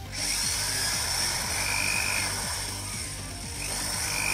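Cordless drill with a 7 mm hex socket running steadily with a high whine, spinning the hex nut off an RC car's front wheel.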